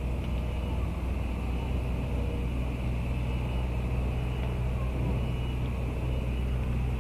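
Steady low rumble of idling road traffic and engines.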